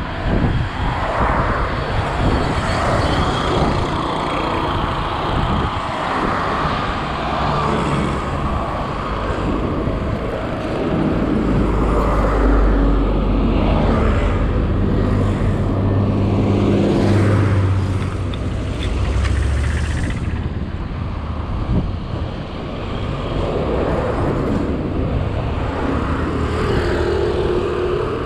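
Road traffic heard from a moving bicycle: steady wind and road noise, with a truck's engine running close ahead, loudest in the middle stretch.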